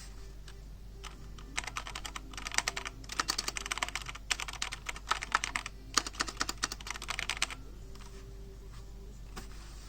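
Fast typing on a Perixx Periboard 734 mechanical keyboard with linear red switches: a run of rapid key clacks starting about a second and a half in and stopping about two seconds before the end, with two brief pauses in the middle.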